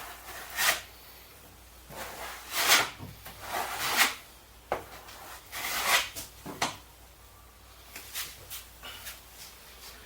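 Irregular sliding and rubbing sounds with a few sharp knocks, as of things being handled and shifted about.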